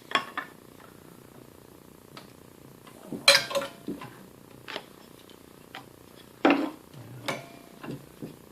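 Metal tools and fasteners knocking and clinking on the grinder frame, half a dozen separate hits, some with a short metallic ring, while the belt tension is adjusted.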